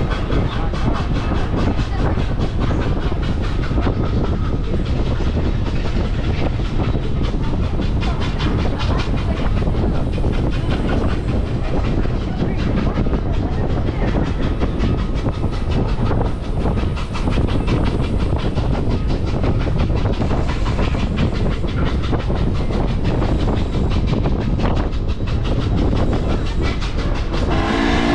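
Steam-hauled passenger train rolling along the rails, heard from a passenger car: a steady, loud rumble of the wheels and car, with clicking over the rail joints.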